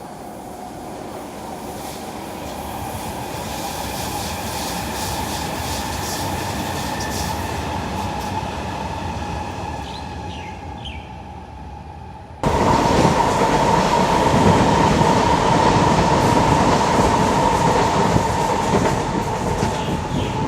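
SMRT North South Line C151-series electric trains running past: rolling wheel noise and a steady whine swell over the first few seconds and then fade. About twelve seconds in, the sound jumps abruptly to a much louder, closer train passage with a steady ringing whine.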